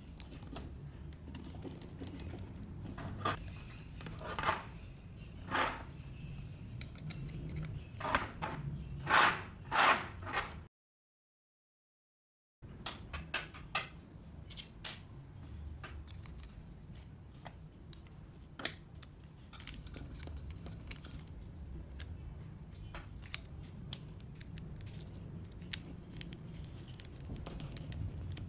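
Small screwdriver turning small screws into laser-cut wooden parts, giving several short rasping scrapes in the first ten seconds. About eleven seconds in, the sound drops to complete silence for about two seconds. After that come light clicks and taps of small parts being handled and screwed, over a low steady hum.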